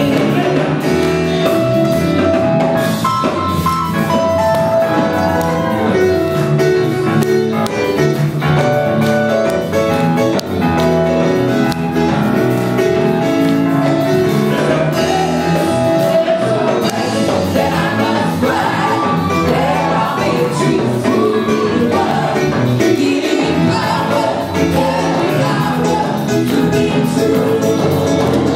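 Live gospel band playing with singing over it, held sung notes above a steady beat of percussion strikes.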